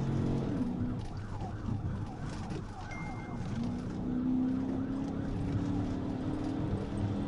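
Police car siren cycling over the patrol car's engine, which accelerates hard.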